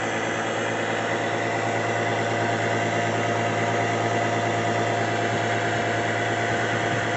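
Small fuel transfer pump running steadily while it drains gas from a jet ski's tank: an even, unchanging hum.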